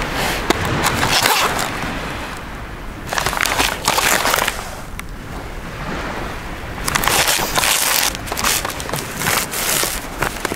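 Rustling and scraping handling noise from a cardboard firework cake box being turned over in the hand close to the microphone, coming in several bursts with scattered sharp clicks.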